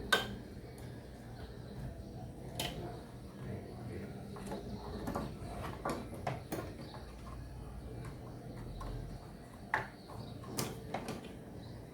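Scattered light clicks and taps of a RAM memory stick being handled and pressed into its slot on a desktop motherboard, with the slot's retaining clips clicking. The sharpest click comes about ten seconds in, over a low steady hum.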